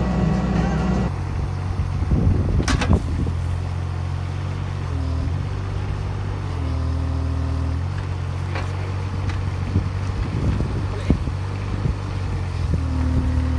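Diesel digger engine running, its note shifting a few times as the controls are worked, with a higher hydraulic whine coming and going in short stretches. A few sharp clanks from the machine.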